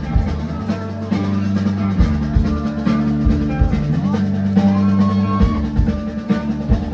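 A band playing through the sound system at a sound check: drum kit with bass drum hits, bass and guitar together in a steady rock groove.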